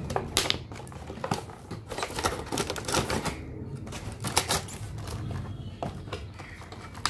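Thin clear plastic blister packaging crackling and clicking irregularly as it is handled and pulled off a moulded plastic tray, the clicks thinning out near the end.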